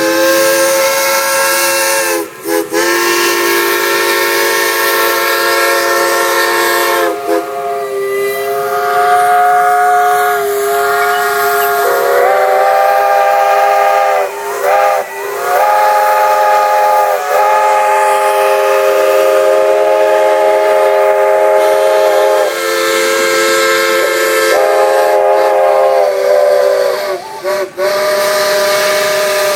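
Several steam whistles blowing together at different pitches over a hiss of steam, held long with individual whistles cutting out and coming back in, and a few brief breaks: a noon whistle blow signalling midday.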